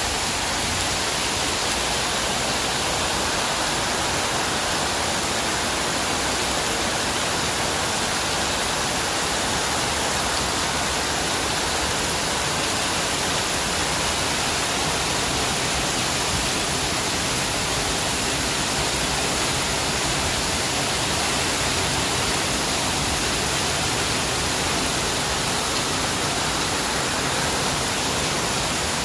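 Heavy rain falling steadily, an even hiss with no single drops or pauses standing out.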